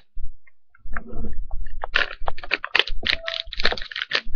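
A plastic pack of wet wipes being handled. After a short pause, about a second in, comes a dense run of quick crinkles and clicks.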